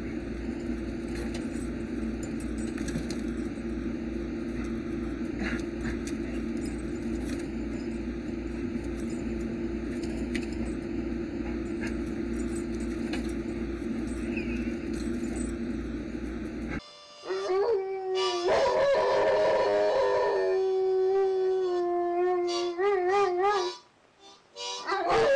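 A dog growling as it tugs at a pickup truck's front tyre, over a steady low rumble. Then, about three-quarters of the way in, after an abrupt change, a dog howls in long, held notes that waver in pitch.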